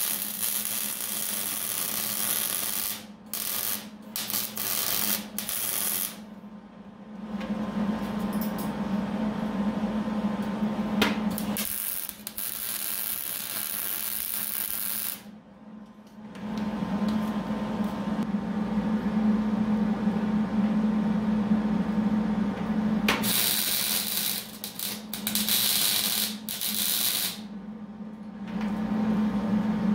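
Wire-feed welder's arc crackling as steel rail is welded, in several runs of a few seconds each that start and stop abruptly, with a steady low hum between runs.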